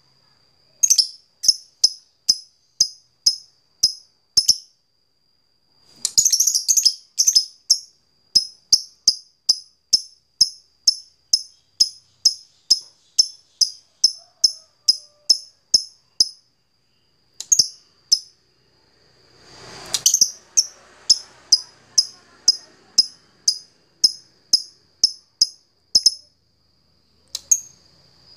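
Fighter lovebird's long 'ngetik' call, a rival-challenging call: sharp, high chirps repeated about three times a second in long runs, broken by short pauses, with a faint steady high whistle underneath.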